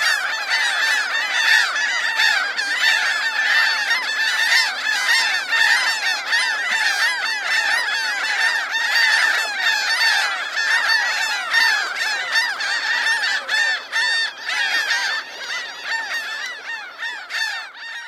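A flock of gulls calling all at once: a dense din of many overlapping squawks, thinning a little near the end.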